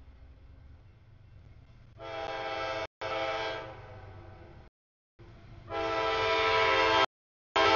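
CSX freight locomotive's air horn blowing for the grade crossing, several tones at once, in repeated blasts that grow louder as the train approaches, over a low engine rumble. The sound drops out to silence twice for about half a second.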